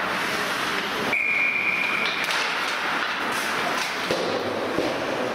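Ice hockey referee's whistle blown once, about a second in: a single steady high tone lasting about a second, over the constant noise of the rink.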